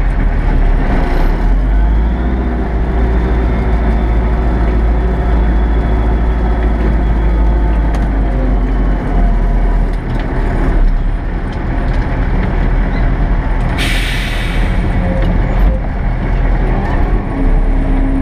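Kirovets K-700A tractor's diesel engine running steadily under load, heard from inside the cab. About 14 seconds in there is a short, sharp hiss of released air.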